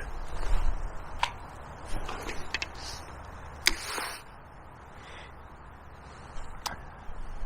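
About five sharp, irregularly spaced clicks over a steady background hiss.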